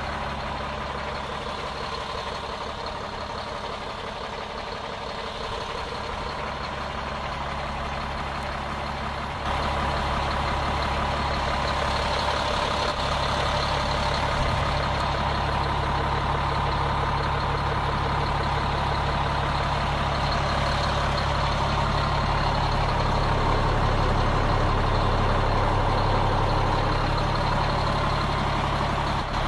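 Sterling LT8500 plow truck's diesel engine running steadily at idle. It gets louder about a third of the way in and stays so.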